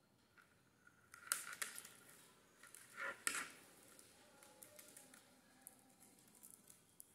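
Faint clicks and scratchy rustles of small beads and wire being handled as beads are threaded onto the wire, loudest around one and three seconds in, with light scattered ticks after.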